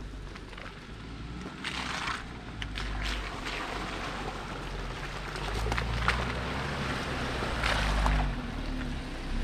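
Jeep engine running at low speed as it creeps along a rough dirt trail. Several short rushing noises come over the low rumble, about two, three, six and eight seconds in.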